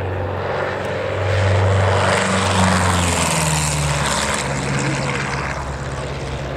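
Twin piston engines and propellers of an Aero Ae-145 making a low flypast. The sound grows louder, then drops in pitch about halfway through as the plane passes.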